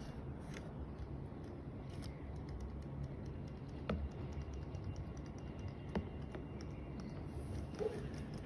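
Light clicking and tapping from a robotic toy fish swimming in a shallow plastic tub of water, with a few sharper ticks about every two seconds.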